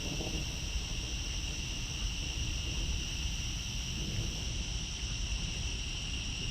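Steady chorus of night-calling insects, a constant high-pitched trill, over a low rumble of wind on the microphone.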